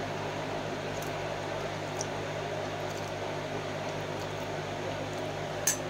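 Gas stove burner hissing steadily under Maggi noodles simmering in a coconut shell, with a low steady hum beneath it. A spoon stirs the noodles, with a few light knocks and a sharper click against the shell near the end.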